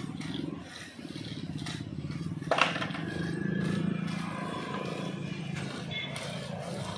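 Roller-skate and skateboard wheels rumbling over a rough cement road, with one sharp clack about two and a half seconds in.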